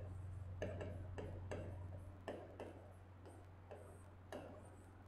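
Stylus tip tapping and scraping faintly on the glass of an interactive whiteboard screen while handwriting, in about nine irregular light taps, over a steady low electrical hum.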